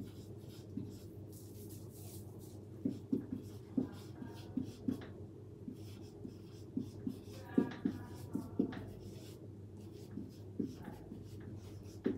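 Marker pen writing on a whiteboard: a run of short scratchy strokes and taps, with brief squeaks of the felt tip around the middle.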